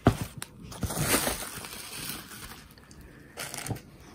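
Bubble wrap crinkling and rustling as it is handled, with a sharp knock right at the start and scattered crackles, loudest in the first second and a half.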